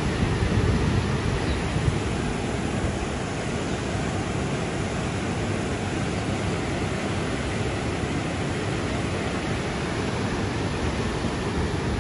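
Steady rushing noise of fast-flowing floodwater, louder and more uneven for the first couple of seconds.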